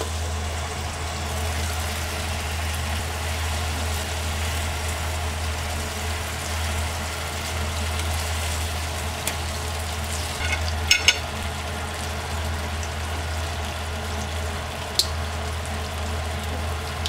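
Pork chops frying in oil with sliced garlic in a pan, a steady sizzle over a low hum. A few quick clicks come about eleven seconds in, and a single sharp tick about fifteen seconds in.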